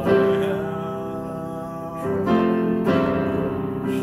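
Instrumental background music with sustained chords, new notes striking at the start and again about two and three seconds in.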